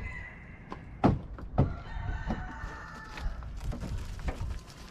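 A rooster crows once, a drawn-out call starting about two seconds in. A few sharp knocks come before and during it.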